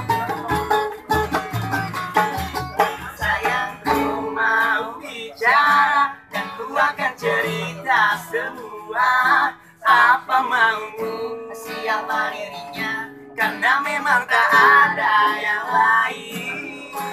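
Street band performing: two acoustic guitars strummed with a homemade hand drum made of tubes, beaten in a steady rhythm. Men's voices come in singing about four seconds in, with the guitars carrying on beneath.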